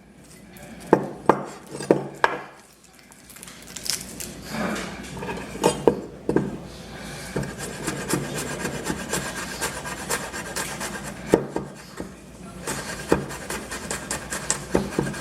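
Kitchen knife cutting garlic on a cutting board. A few single knocks come first, then long stretches of quick, fine chopping and scraping against the board, with a run of sharp knocks near the end.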